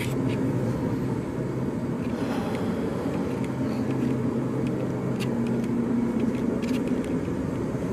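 Steady low mechanical hum with a few faint clicks and taps.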